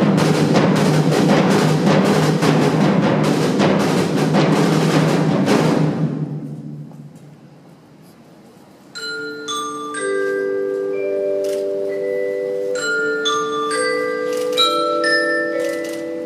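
Percussion ensemble: a loud, dense roll of rapid strikes that starts suddenly and fades away over about six seconds, then after a short pause mallet instruments such as marimba and glockenspiel play a melody of ringing, sustained notes.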